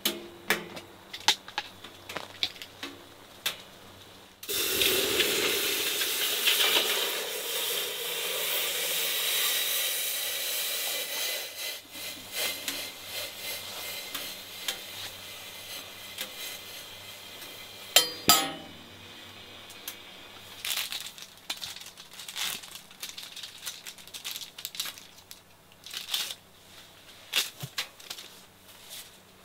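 Water poured into the stainless steel water tank on the side of a wood stove: a sudden rushing splash starting about four seconds in, lasting about seven seconds and then tailing off. Light clicks and knocks come before and after, with a sharp double metal clank partway through.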